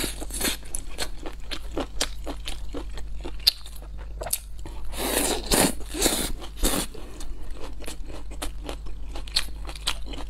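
Close-miked mouth sounds of chewing crispy fried food: dense, irregular crunches and wet smacks, loudest about halfway through.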